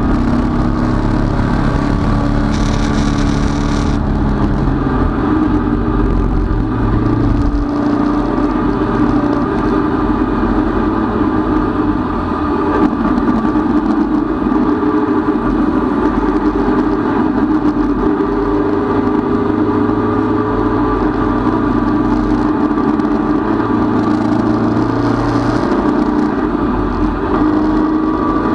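Datsun 510 race car's four-cylinder engine running hard at racing speed, heard from inside the stripped cabin, its pitch stepping up and down several times as the driver works through the gears and throttle.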